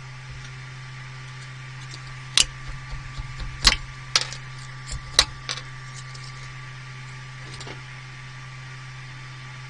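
Steady fan hum of a 3D printer, with a run of sharp clicks and knocks over about three seconds as a small finished print is pried off the print bed, then one faint knock later.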